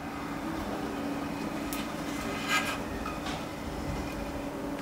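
A steady low hum with a few faint clicks while silicone sealant is squeezed from a caulking gun onto a metal wall profile.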